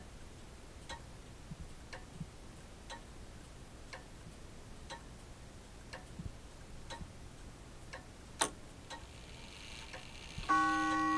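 Grandfather clock movement ticking about once a second, with a sharper click about eight seconds in. Near the end the chime starts up with ringing struck notes.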